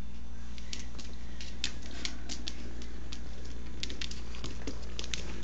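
Scattered light clicks and taps at an irregular pace, from a rat terrier at play with a HexBug toy on a hard floor, over a steady low hum.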